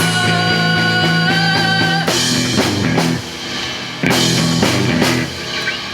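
Live rock band playing an instrumental stretch between vocal lines: guitar, bass and drum kit. A held guitar note rings for about the first two seconds, then the band hits accented chords with the drums roughly once a second.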